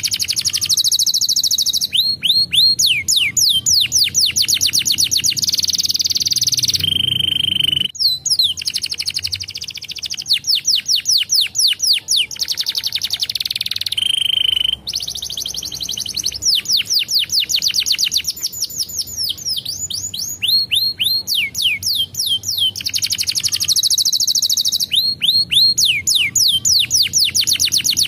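Domestic canary singing: a long song of fast trills built from rapid, repeated high falling notes, changing speed from phrase to phrase, with short pauses and a couple of brief steady whistled notes.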